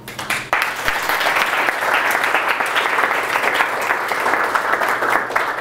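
Audience applauding: many hands clapping together, starting about half a second in and keeping up steadily.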